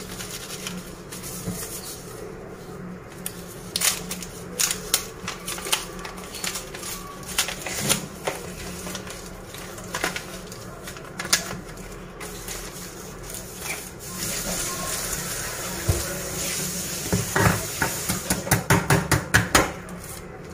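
The paper sleeve and gold foil wrapper of a Dairy Milk Silk chocolate bar, handled and unwrapped by hand. Scattered crinkles, rustles and light taps, with a quick run of crisp crinkles near the end as the foil is worked open.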